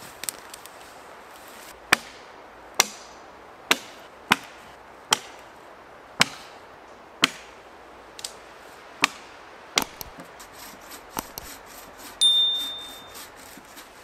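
Axe chopping into a felled tree trunk: about ten sharp strikes roughly a second apart, followed by lighter taps. Near the end comes a single loud, short ding with a high ringing tone that fades quickly.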